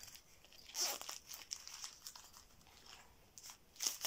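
Crinkling and rustling of the plastic wrapping on panty liners being handled, in a few short faint bursts, the clearest about a second in and near the end.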